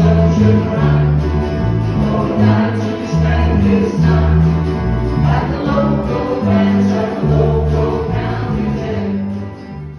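Live band playing a rock song: strummed acoustic guitars over a walking electric bass line, with voices singing. The music fades out right at the end.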